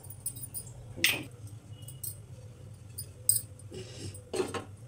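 A few sharp clinks and taps of a spoon against a steel pressure-cooker pot, once about a second in and again in a cluster after three seconds, over a steady low hum.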